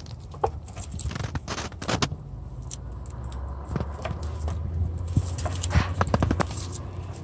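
Car engine running with a steady low hum, with a faint steady whine coming in a few seconds in. Scattered clicks and knocks, like parts or tools being handled, sound over it.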